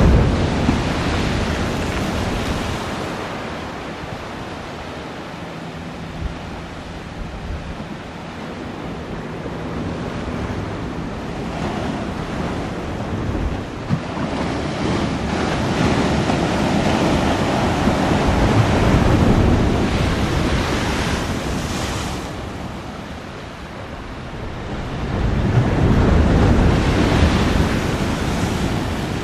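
Distant roar of an Airbus A340-212's four CFM56 jet engines as the airliner taxis out for takeoff, mixed with wind on the microphone. The noise swells and fades several times, loudest near the start, in the middle and near the end.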